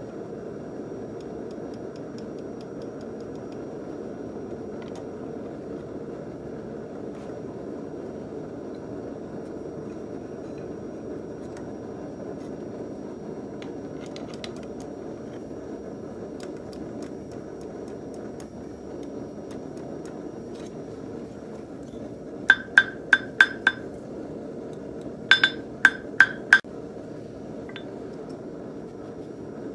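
Hammer striking hot steel wire on an anvil in two quick runs of about five ringing blows each, a few seconds apart near the end, over a steady low rush. The smith is bending a slight upward curve into the tines of a fork forged from 9-gauge wire.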